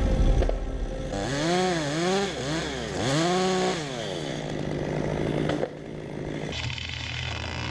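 Chainsaw engine revving up and down several times, its whine rising and falling in pitch, then running at a steady speed.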